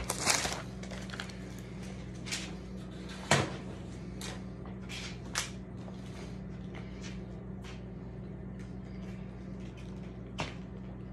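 Scattered footsteps and light knocks on a concrete floor, with the clearest about three seconds in, over a steady low hum.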